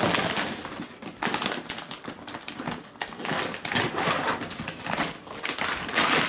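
Large woven plastic checked bag rustling and crinkling as it is handled and pulled open. The crackly rustles come in an uneven run with short pauses.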